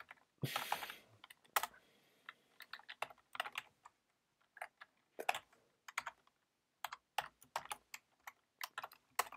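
Computer keyboard typing: irregular bursts of keystrokes as a line of code is entered, with a short hiss about half a second in.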